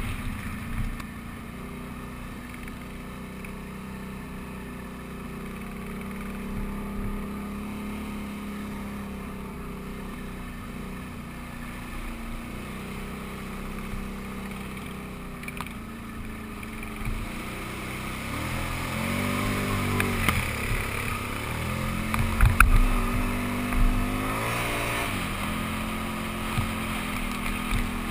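Can-Am Renegade 800's V-twin engine running steadily while riding a dirt trail, recorded close on the ATV. In the last third the pitch rises and falls with the throttle, with a sharp knock about two-thirds of the way through.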